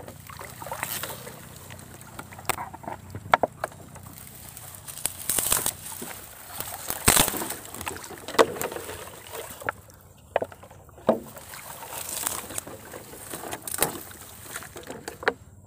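Reed stems rustling and brushing past as someone pushes through a reed bed over water, with water sloshing and irregular snaps and knocks.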